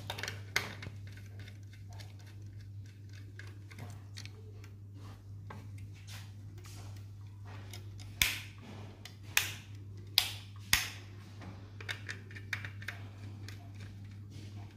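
Small clicks and taps from a tester screwdriver turning terminal screws and from wires being pushed into the terminals of a plastic modular switch board. A few sharper clicks come close together about eight to eleven seconds in.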